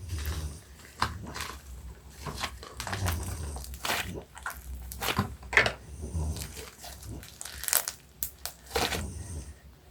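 Crinkling and crackling as slime-making supplies are handled: an irregular run of rustles and sharp clicks, with the loudest snaps about five and a half seconds in and again near the end.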